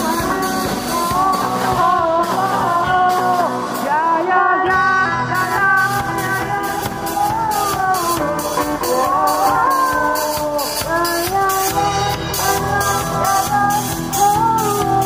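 Amateur student rock band playing live: a singer on a microphone over strummed acoustic guitar, keyboard and a drum kit. The drums and bass drop out briefly about four seconds in, then the band comes back in.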